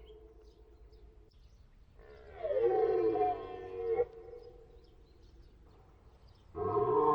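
Red deer stag roaring in the rut: a drawn-out, gliding call about two seconds in, and another starting near the end.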